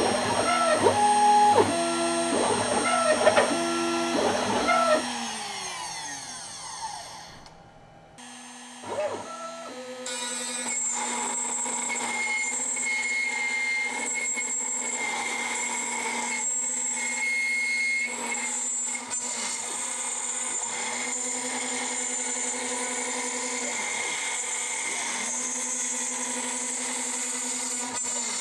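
CNC router with a tapered ballnose bit in its spindle: for the first five seconds the machine runs with stepper-motor tones stepping between pitches as the bit moves through walnut pockets, then the spindle winds down, its pitch falling away. After a short break the spindle runs steadily again while the bit carves Osage orange, the drive tones shifting as the axes move.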